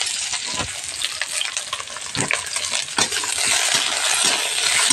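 Sliced onions sizzling in hot oil in a steel kadhai, stirred with a metal spatula that scrapes and clinks against the pan several times. The sizzle grows fuller about three seconds in.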